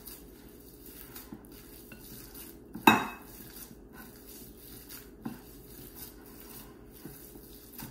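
Hands kneading raw ground beef in a glass mixing bowl: quiet handling sounds of the meat being worked, with one sharp knock on the glass bowl about three seconds in and a smaller one a couple of seconds later.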